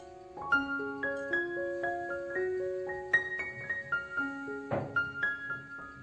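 Soft background piano music: a slow melody of single notes, each struck and left to ring. A brief knock cuts through the music about five seconds in.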